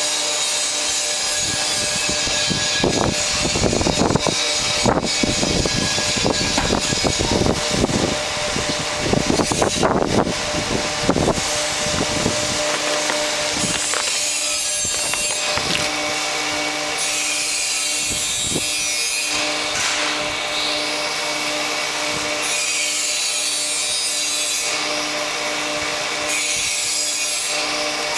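A 24-inch stop head being run through a test cycle: a steady mechanical hum, with creaking and scraping of its metal parts over the first dozen seconds, then a hiss that swells and fades about every three seconds.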